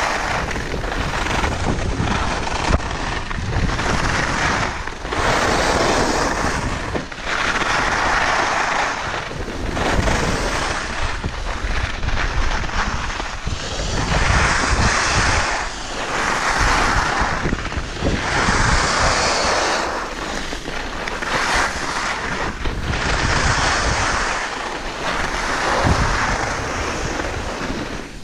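Skis hissing and scraping over groomed snow through a run of turns, a swell of noise about every two seconds, with wind rumbling on the microphone.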